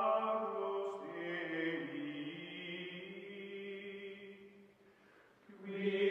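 Outro music of slow, chant-like held voices. The notes shift about a second in, fade low around five seconds, then swell back near the end.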